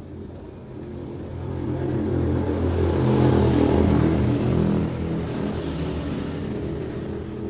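A motor vehicle engine passing by: a low engine note that swells to its loudest in the middle and then fades away.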